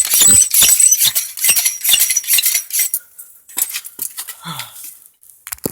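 Old hand bicycle pump being worked to inflate a tyre: quick metallic clinks and rattles with a thin high squeak, thinning out about three seconds in to a few scattered knocks.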